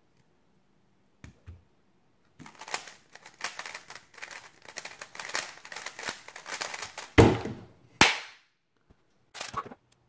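GAN 356 XS 3x3 speed cube being turned at full speed for about five seconds, a dense rattle of plastic clicks and clacks. It ends in a loud thud as the hands slap down on the stackmat timer to stop it. A second sharp knock follows about a second later, and a brief clatter comes near the end.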